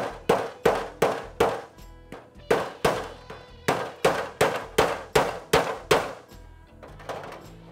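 Hammer blows on the edge of a rusty steel trunk panel, about three sharp ringing strikes a second, as the sheet metal is shaped. There is a short pause about two seconds in, and the hammering stops about six seconds in.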